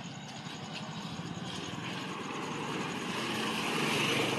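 An engine-like mechanical drone running steadily and growing gradually louder toward the end.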